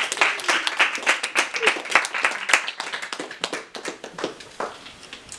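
A small audience clapping by hand, dense at first, then thinning out and dying away.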